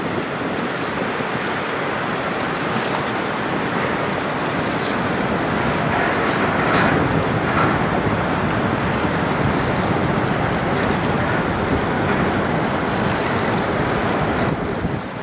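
Steady wind on the microphone over the wash of lake waves.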